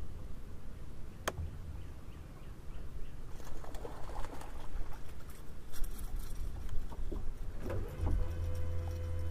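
Scattered light clicks and crackles on a bass boat, with one sharp click about a second in; about eight seconds in, a steady low electric-motor hum starts and keeps going.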